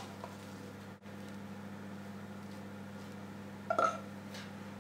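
Quiet room tone with a steady low electrical hum, and one short, pitched sound near the end.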